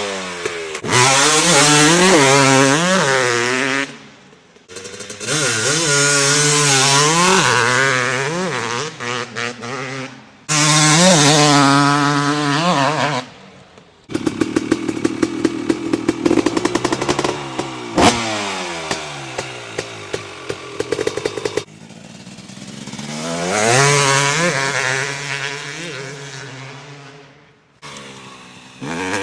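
Stock GasGas MC250 two-stroke motocross engine with an FMF Shorty exhaust, revved hard in several bursts, its pitch climbing and falling between throttle blips. In a stretch past the middle it sits at a low, uneven idle with rapid popping.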